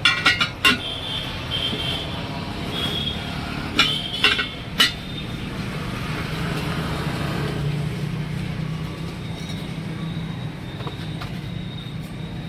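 Sharp metal clanks with a short ring after them, a quick cluster at the start and a few more about four seconds in, over a steady low hum: tools striking metal during a tyre change.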